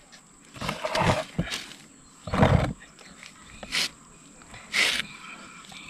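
A few short scrapes and bumps of hands handling a plastic scooter mudguard and setting a digital caliper's jaws against it.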